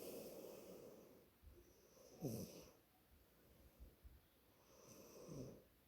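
A sleeping girl snoring faintly: a breath at the start, then two snores about three seconds apart, each sliding down in pitch.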